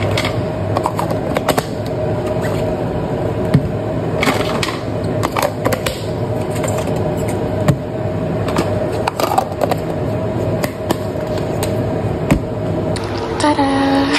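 Kitchen handling sounds: irregular clicks and knocks of containers and utensils being moved about, over a steady background hum.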